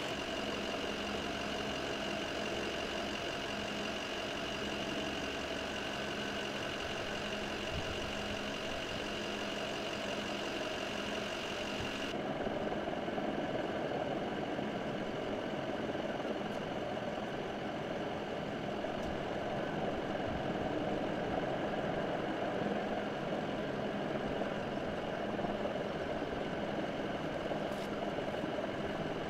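Fire truck engine idling steadily, with a thin high whine held over it. The sound changes abruptly about twelve seconds in, the whine dropping back while a lower hum comes up.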